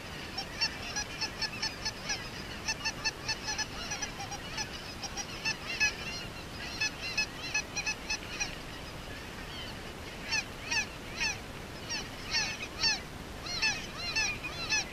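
A large flock of geese calling overhead: many short honks overlapping, several a second, with a lull of about a second and a half past the middle before the calling picks up again.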